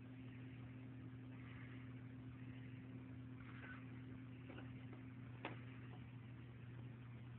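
Quiet room tone with a steady low electrical hum, broken by a few faint clicks and knocks, with one sharper click about five and a half seconds in.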